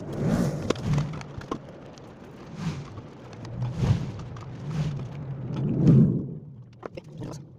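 A metal rod scraping and prodding inside the metal base of a blender jar, in a series of short scraping strokes with a few light clicks near the end.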